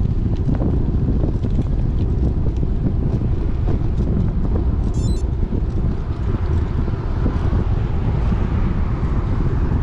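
Wind buffeting the microphone of a camera on a moving road bicycle: a steady, loud low rumble, with a brief faint high chirp about five seconds in.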